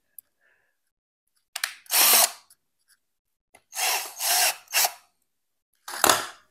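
Cordless drill boring a hole through a black plastic bowtie mounting bracket, run in three short bursts about two, four and six seconds in.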